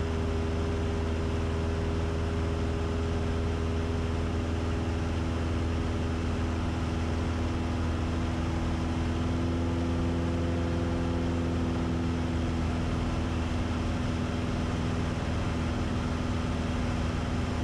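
A 1966 Cessna 172's 180-horsepower piston engine and propeller drone steadily in flight, with power kept up for speed on final approach.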